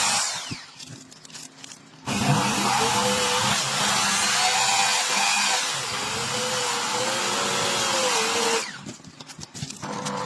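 An electric power tool running for about six seconds, with a short pause before it starts and after it stops.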